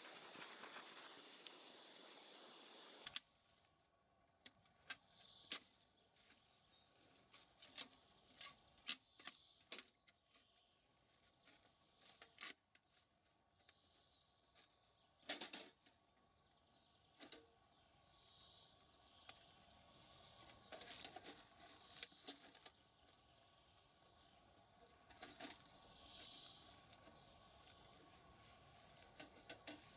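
Scattered clicks, taps and rustles of a small folding metal wood stove being handled and assembled on the ground, with faint bird chirps now and then. A steady hiss fills the first three seconds and cuts off suddenly.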